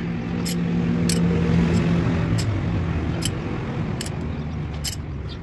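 A motor vehicle's engine runs steadily nearby, swelling about a second in and easing off toward the end, with sharp metallic clicks about once a second from a hand tool working on the studs of a tractor's service plate.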